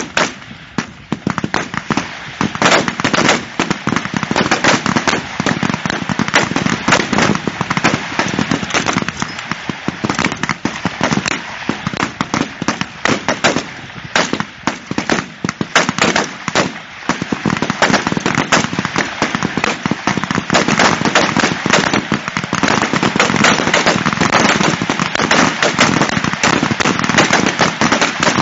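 Rifle fire from many shooters along a firing line: sharp, overlapping shots crackling almost without a break, growing denser and louder about two-thirds of the way through.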